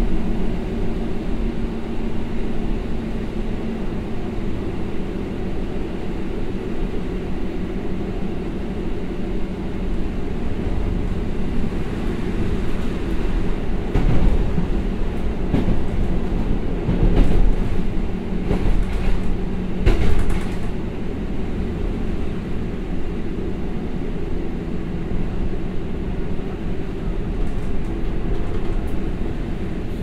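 Onboard running noise of a JR Hokkaido KiHa 183 series diesel railcar as it brakes, heard from the car's vestibule: a steady rumble with a low engine hum. About halfway through comes a cluster of louder knocks and clatter lasting several seconds.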